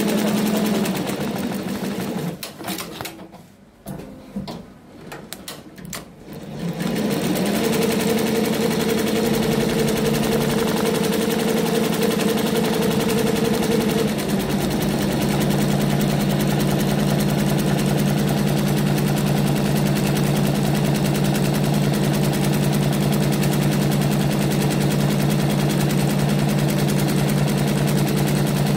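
Multi-needle computerized embroidery machine (CNY two-head, 12-needle) stitching a cap, its needle bar running as a fast, even mechanical chatter. About two seconds in it slows and drops almost quiet for a few seconds, then runs again. Around the middle its running note steps lower and stays steady.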